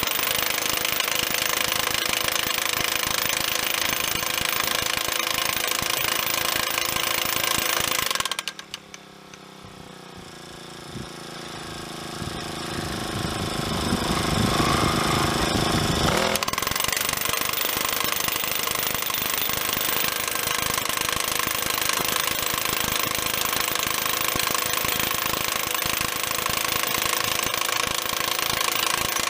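Powered hammer driving a steel ground post for a high tunnel greenhouse, a rapid continuous hammering. It stops about eight seconds in, stays quieter for several seconds, then starts hammering again and runs on.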